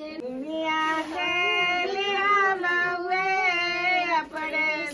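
A woman's high voice singing a slow folk melody without accompaniment, holding long notes that slide up and down.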